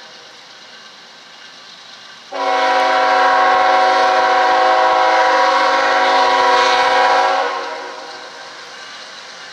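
Diesel freight locomotive's multi-chime air horn: the tail of one blast fading, then a long blast that starts suddenly about two seconds in, holds for about five seconds and dies away near the end, several notes sounding together. It is sounded as the train approaches a grade crossing.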